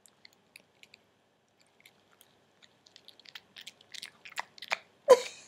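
Small Morkie dog biting and chewing string cheese: faint, scattered mouth clicks at first, turning into quicker, louder chewing in the last couple of seconds. A short vocal sound near the end is the loudest moment.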